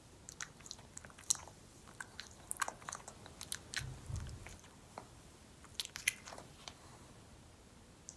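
Soft, irregular chewing mouth sounds: small wet clicks and smacks scattered through, with a brief low rustle about halfway.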